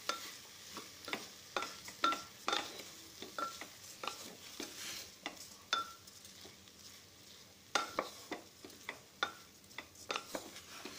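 A spoon stirring rice with fried potatoes, onions and spices in an open pressure cooker, with irregular sharp taps of the spoon against the pot, some ringing briefly, over a faint sizzle.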